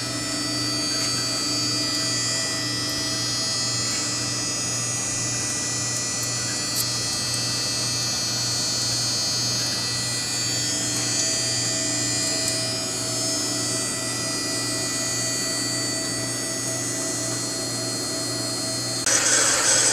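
Small electric motors of a home-built coffee bean roaster running steadily: a whining hum with a faint regular pulse. Near the end a louder, rough rushing noise cuts in.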